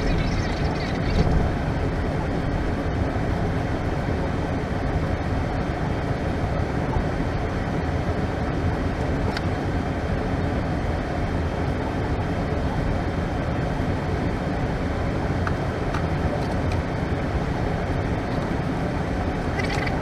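Steady low rumble and hiss inside an Airbus A320 cockpit while it is pushed back for engine start, holding an even level throughout.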